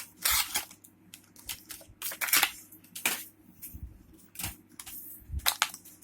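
Packaging of a new fidget spinner being handled and opened: irregular rustles and sharp clicks, the loudest about two and three seconds in.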